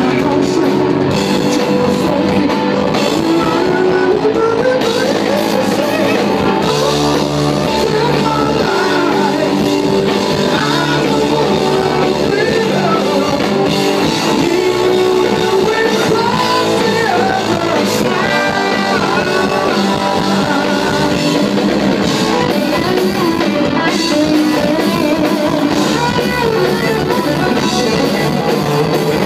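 A live rock band playing electric guitar and drum kit, with singing.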